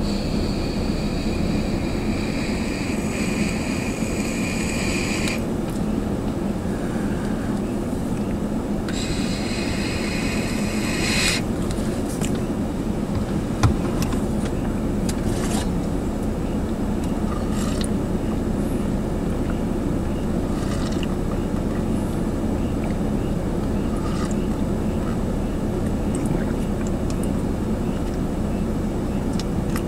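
Freight train on the track: a steady low rumble with high-pitched metallic squealing twice, for about five seconds at the start and again for a couple of seconds around ten seconds in, and one sharp knock midway.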